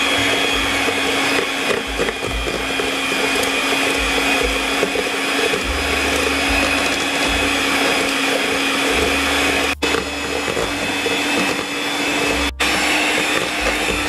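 Electric hand mixer running steadily at low speed, a constant motor whine, its beaters creaming margarine and powdered sugar in a stainless steel bowl.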